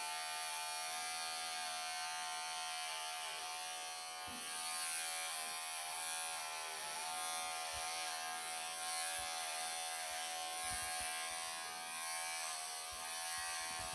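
Bravura electric pet clippers running with a steady buzz while shaving a Persian cat's thick, matted coat, with a few faint soft knocks of handling.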